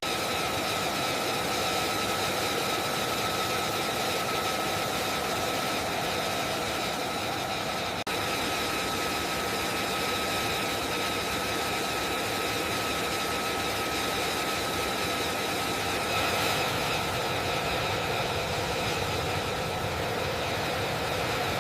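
Jet turbine running steadily: a high, even whine over a constant rush of noise.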